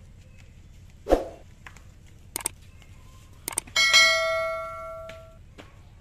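Subscribe-button animation sound effects: a short thump about a second in, then two pairs of mouse clicks, then a notification bell chime that rings out and fades over about a second and a half.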